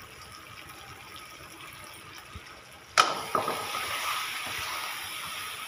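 Low, steady hiss of masala simmering in a metal kadhai. About three seconds in, a long-handled metal ladle clanks twice against the pan, then stirs through the thick curry with a louder sizzle.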